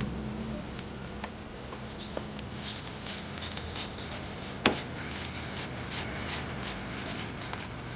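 Scattered light clicks and rubbing from hand work with tools, with one sharp click a little past halfway.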